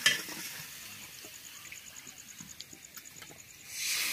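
An insect chirping in rapid, even pulses against a faint outdoor hiss, with a sharp click at the start and a few small clicks. A loud rush of hiss swells up near the end.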